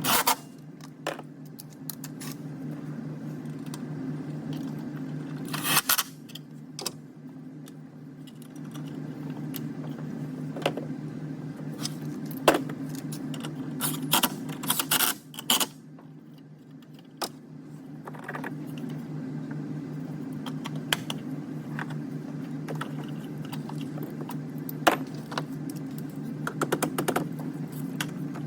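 Small metal tools and parts clinking and clicking irregularly, with a few sharper knocks, over a steady low hum.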